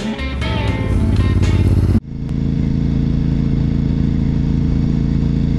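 Intro music with guitar and drums stops abruptly about two seconds in, replaced by a 2004 Honda RC51's V-twin engine running at steady revs while the bike cruises, with a constant rush of wind over it.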